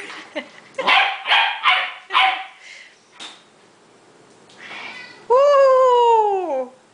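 Bouvier des Flandres puppy yapping, four quick high barks in the first couple of seconds. Later comes one long, loud wail that falls in pitch and lasts over a second.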